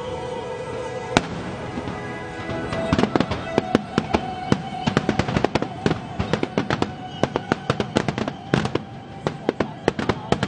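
Fireworks shells bursting: a single bang about a second in, then from about three seconds a rapid barrage of sharp cracks and bangs, several a second, over music with long held notes.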